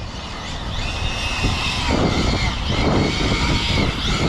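Arrma Felony 6S RC cars' brushless electric motors whining, the pitch rising and falling as the cars speed up and slow while drifting. Two rushes of tyre noise come about two and three seconds in.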